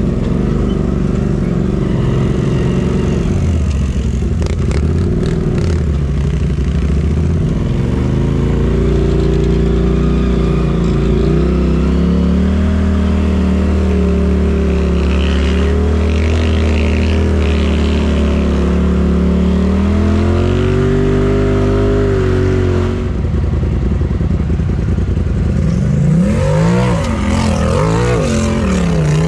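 Side-by-side UTV engine running on a dirt trail, heard from inside the cab, its pitch rising and falling slowly with the throttle. Near the end it revs up and down in quick succession.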